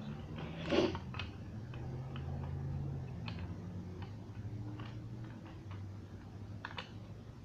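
Faint, irregular small clicks and taps, one louder click with a short rustle about a second in, over a low steady hum.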